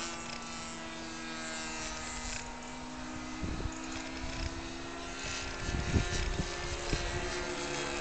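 Motor and propeller of a radio-controlled Cessna 177 Cardinal model aircraft in flight, a steady pitched drone. A few short low thumps come about halfway through and again a couple of seconds later.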